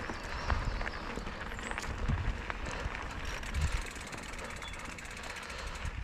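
Mountain bike being ridden over a dirt trail: a steady rough rolling noise with knocks and rattles over bumps.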